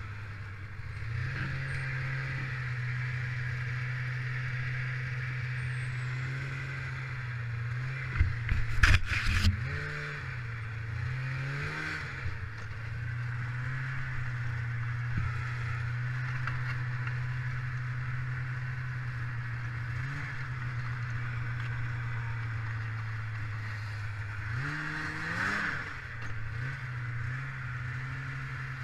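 1995 Polaris Indy 500 snowmobile's two-stroke engine running steadily under way. The engine note dips and rises with the throttle about ten to twelve seconds in and again near the end. A burst of loud knocks and clatter about eight to nine seconds in is the loudest moment.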